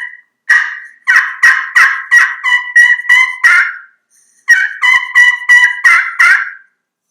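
Slate turkey call worked with a striker, playing kee-kee runs: strings of high whistled kee notes that break into lower, raspier yelps at the end, the lost call of a young turkey. Two runs, with a short pause of about a second between them.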